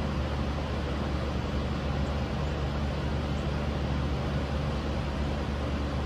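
Steady outdoor ambience: an even rushing noise with a low rumble underneath and no distinct events.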